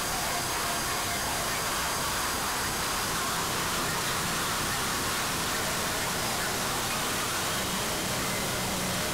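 Noise-music track: a dense, steady wall of static hiss filling the whole range, with faint thin tones drifting through it; a high one fades out about three seconds in.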